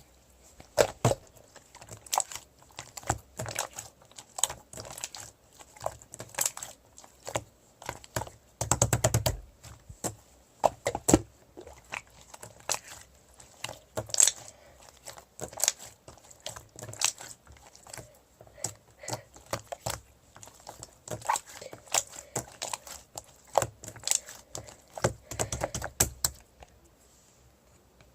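Irregular sharp clicks and taps, at times in fast rattling bursts, like typing on a keyboard; they stop about 26 seconds in.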